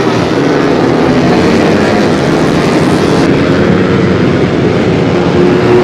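Racing underbone motorcycles with 150cc four-stroke engines running at high revs, several engines overlapping in a steady loud buzz.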